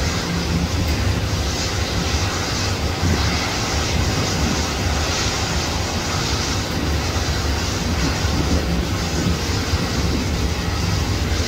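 Jet engines of an Airbus A330 as it rolls along the runway: a steady rumble and hiss that holds without rising or falling.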